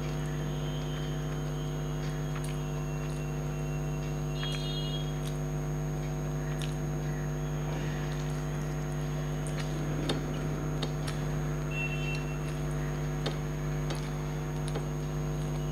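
A steady low hum made of several even tones, unchanging throughout, over faint scattered clicks and smacks of rice being gathered by hand from a plate and chewed. A few brief high chirps come through now and then.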